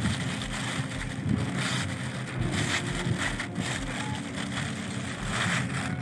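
Wind buffeting the microphone over a steady low machinery hum, with brief crinkles of the clear plastic EEBD hood as it is pulled down over a man's head.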